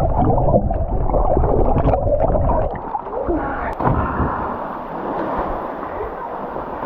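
Muffled underwater bubbling and churning of river water around a submerged action camera. About three seconds in, the camera breaks the surface, and the sound turns to open-air water splashing and lapping.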